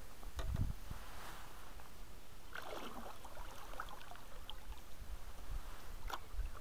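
Canoe paddling: the paddle blade dipping into and pulling through the river water with a swishing splash and drips, over a low rumble.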